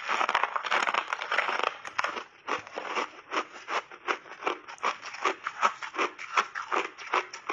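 Refrozen mixed-berry block ice bitten and chewed close to a lapel microphone. A dense crackling crunch for the first two seconds, then steady chewing crunches, about four a second.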